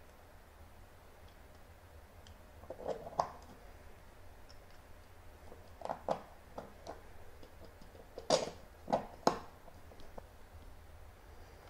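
Light clicks and knocks of 3D-printed plastic tripod parts and small metal pivot pins being handled and pushed together by hand. They come in scattered clusters, the sharpest few clicks about eight to nine and a half seconds in.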